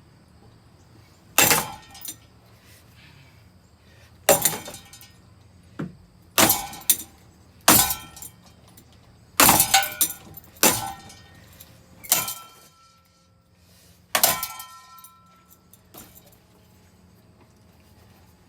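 About ten hard blows smashing a ceiling fan, each a sharp crash with breaking and clattering pieces. Two of the later hits leave a brief metallic ring.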